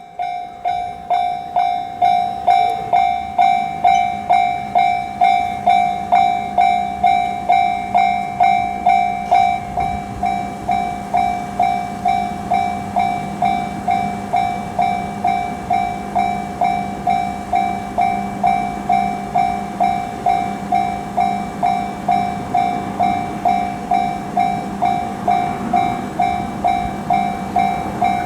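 Japanese level-crossing warning bell ringing its fast, even "kan-kan" strikes, about two a second: the crossing has just been activated for an approaching train. A low steady hum and rumble builds beneath it from about ten seconds in.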